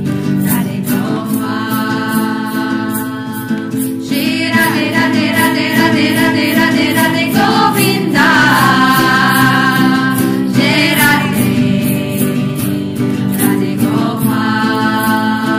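A group of voices singing a devotional chant-style song together, with a steady rhythmic accompaniment keeping the beat.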